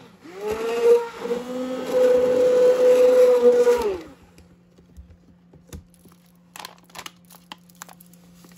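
Handheld immersion blender whirring in a bowl of frothy soap solution. It cuts out and restarts right at the start, then winds down about four seconds in. After that there are faint clicks, and a plastic packet crinkles near the end.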